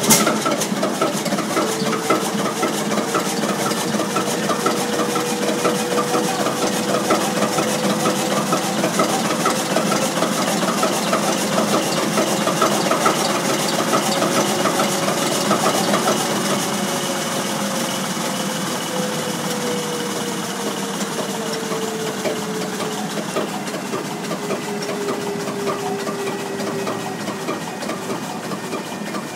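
Large Duvant diesel engine running steadily after being started, with a dense, rapid beat. A thin whine over it rises slowly until about halfway, then falls away.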